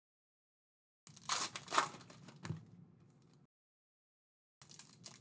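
Trading-card pack wrappers crinkling and tearing as packs are opened, in two stretches with dead silence between them.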